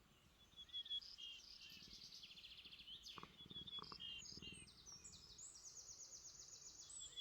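Faint birdsong: a run of quick high chirps and rapid trills, with a few soft knocks about three seconds in.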